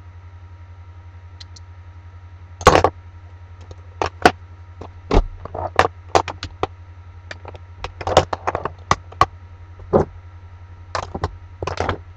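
Makeup items clicking and clattering as they are rummaged through while searching for an eyeliner pencil: a run of irregular sharp clicks and knocks starting a few seconds in, over a steady low hum.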